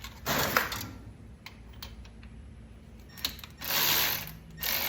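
Hand ratchet wrench clicking in bursts as the starter's mounting bolts are loosened to drop the starter and take out its shims: one short burst early on, a few single clicks, then longer runs of ratcheting near the end.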